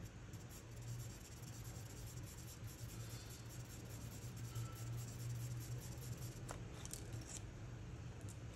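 Charcoal pencil scratching on drawing paper in a run of quick, light shading strokes, which stop about a second before the end. A steady low hum runs underneath.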